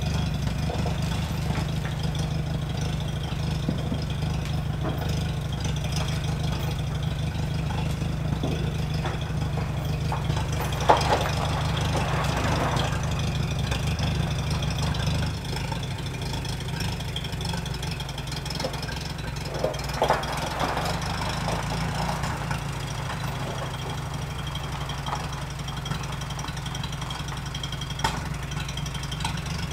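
Tractor engine running steadily while it tows a non-running car, its note easing a little about halfway through. A couple of short knocks come around eleven and twenty seconds in.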